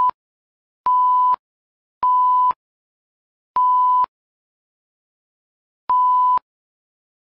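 Censor bleeps: a steady high beep tone sounding in short half-second bursts, four full ones after the tail of a first, with the sound cut to dead silence between them. The bleeps blank out the names being spoken.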